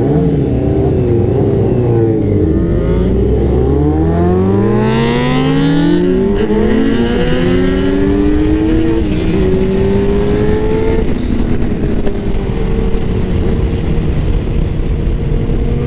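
Several sport-bike engines accelerating together, their pitches climbing and dropping as they shift gears and crossing one another, with wind rush on the microphone. Loud throughout.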